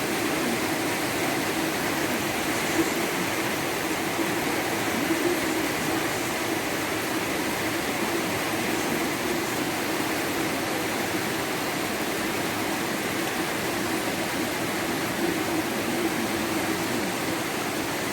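Heavy rain pouring down in a steady, dense hiss with no let-up.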